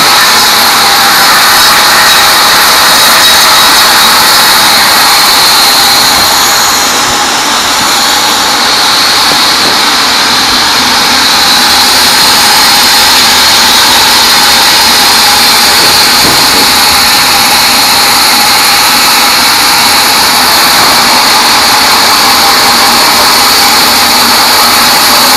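Sawmill bandsaw cutting a teak log: a loud, steady hiss of the blade in the wood with a high steady tone over it, dipping slightly about seven seconds in.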